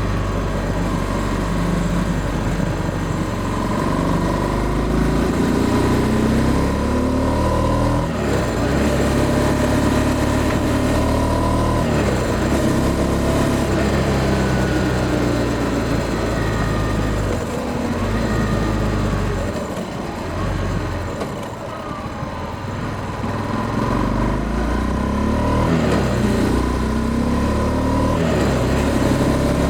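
Honda CB300F Twister's single-cylinder engine under way, its pitch rising repeatedly as it accelerates and dropping back at each gear change. About twenty seconds in the throttle eases off and the sound drops, then it picks up and climbs again.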